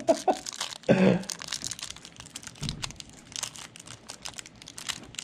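Foil trading-card pack wrapper crinkling as cards are handled, a quick run of small crackles.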